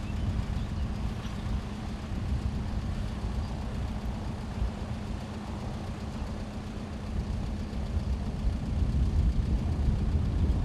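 Steady low rumble of road traffic waiting at closed bridge barriers, with a constant low hum underneath.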